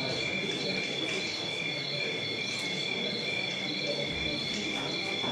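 Cricket chorus played over the hall's speakers as a night-time sound effect: steady high chirping that pulses about twice a second, over low background noise.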